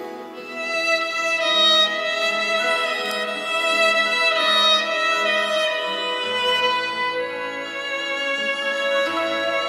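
Violin playing a sustained bowed melody, accompanied by a Portuguese guitar and an acoustic guitar, with short low plucked notes about twice a second beneath it.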